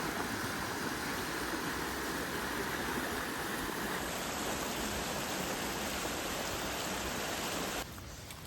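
Steady rushing noise like running water. Its tone shifts about four seconds in, and it cuts off abruptly near the end.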